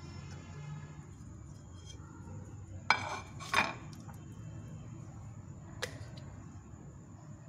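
Kitchenware clinking as the pizza pan and dishes are handled: two sharp clinks close together about three seconds in and a lighter click near six seconds, over a low steady hum.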